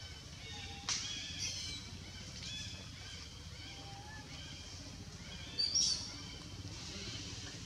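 Several short, high-pitched animal calls, a sharp one about a second in and the loudest cluster near six seconds, over a steady low background rumble.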